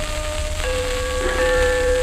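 Pathé 78 rpm shellac record playing, with crackling surface noise under held, steady tones. The tones change to a new chord about two-thirds of a second in, and more notes join a little later.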